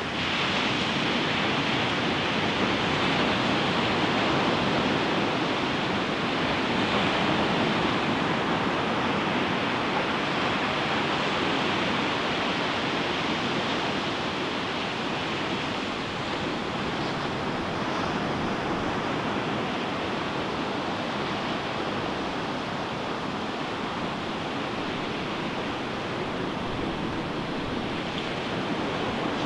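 Ocean surf breaking and washing onto a beach: a continuous rushing hiss that swells and eases gently every few seconds.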